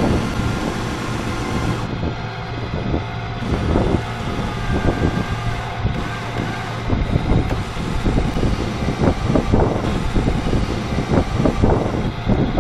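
Wind buffeting the microphone in irregular gusts over the steady hum of a homemade electric boat's motor running on DC battery power while under way.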